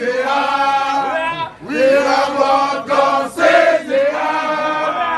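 A crowd chanting in unison, several long held phrases with short breaks between them.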